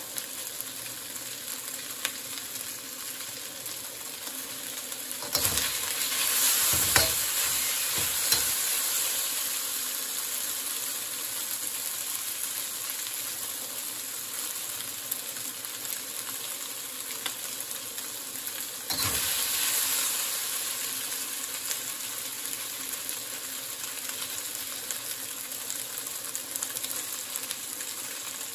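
Diced chicken sizzling and being stirred in a wok under a butane torch flame, seared for smoky wok flavour. The sizzle surges sharply twice, about five seconds in and again near twenty seconds, each time fading back to a steady frying hiss.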